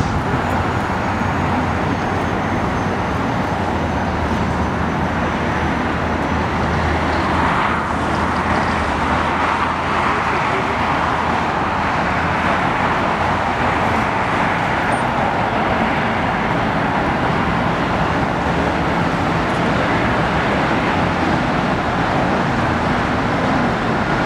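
Steady roar of jet engines from aircraft taxiing on the airfield, swelling slightly about eight seconds in. A faint high whine falls gently in pitch over the first few seconds.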